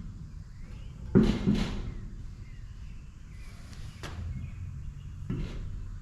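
A few sharp knocks, two close together about a second in, one about four seconds in and one near the end, over a low steady rumble.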